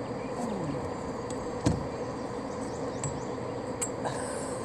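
A fishing reel being cranked as a small catfish is reeled in and swung up out of the water, with a few soft clicks and one knock about a second and a half in, over a steady hum.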